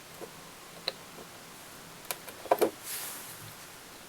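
A few light, scattered clicks and taps from handling small objects at a fly-tying bench, with a short cluster of clicks a little past halfway and a brief soft rustle just after.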